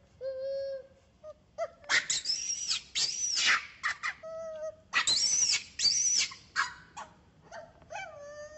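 Infant long-tailed macaque crying: short, steady whimpering coos alternate with loud, shrill screams that rise and fall in pitch. There are two long bouts of screaming, one about two seconds in and one about five seconds in, and it drops back to a coo near the end.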